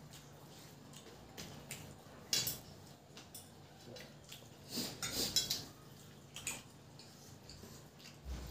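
Eating by hand from stainless steel plates: fingers mixing and scooping rice and curry with small clinks and scrapes on the metal, along with chewing. A few louder, brief sounds come about two seconds in and again around five seconds.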